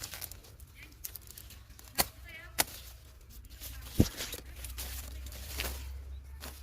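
A few separate sharp knocks and snaps from handwork. The loudest is a low thud about four seconds in, over a steady low rumble.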